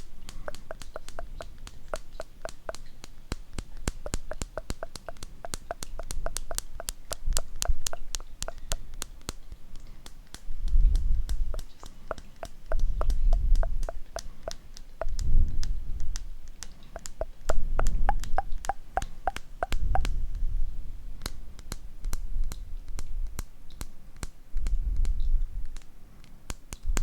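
Quick mouth clicks of the "tk tk" kind made close to the microphone, several a second, with low muffled swells lasting about a second each coming in about six times in the second half.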